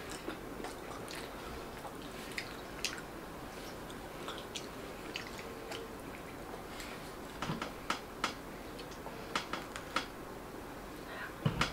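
Chewing and biting into soft flour-tortilla tacos close to the microphone: scattered short wet mouth clicks, more frequent in the second half, with the loudest cluster near the end.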